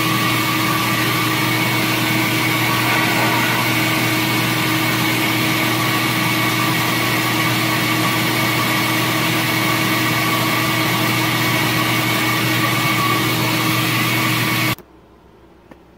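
Flow bench running steadily, pulling air through a Chrysler 318 casting #302 cylinder head port with the valve held open to full lift, until it cuts off abruptly near the end.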